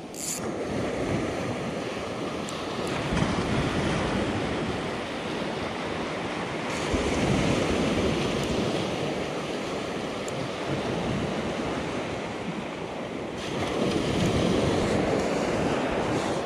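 Small ocean waves breaking and washing up a sandy beach at the water's edge. The wash swells and eases, growing louder about three seconds in, again about seven seconds in, and near the end.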